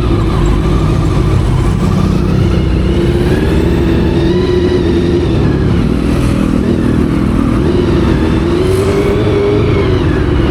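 Honda CBR400RR's carbureted inline-four engine and exhaust under way on the road, the revs rising and falling a couple of times, over a steady wind rumble on the helmet microphone.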